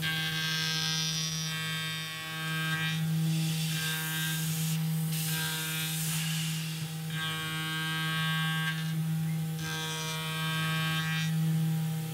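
Tormach 440 CNC mill cutting an aluminum part: a steady hum under a whining, rattling machine tone that comes and goes in spells of a second or two as the cutter moves across the work, with a stretch of hiss about halfway through.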